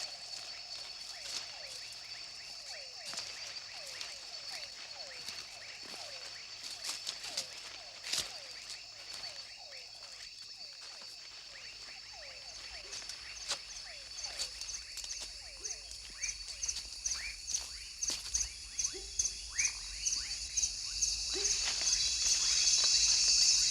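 Tropical rainforest night chorus: steady high insect trilling, with a rapidly pulsing insect call that grows louder through the second half. Short falling chirps repeat about once a second over it, with scattered clicks and rustles.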